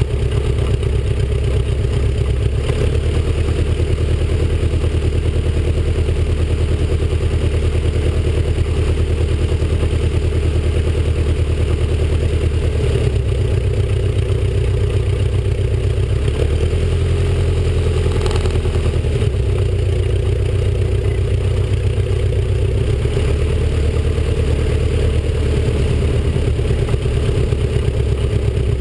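Stampe SV.4 biplane's piston engine running at low power while the aircraft taxis on grass, a steady drone that shifts briefly in pitch a little past halfway.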